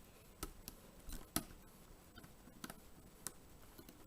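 Faint, irregular metallic clicks of a lock pick and tension wrench working the pin stack of a rim cylinder lock, about five light ticks spread over a few seconds.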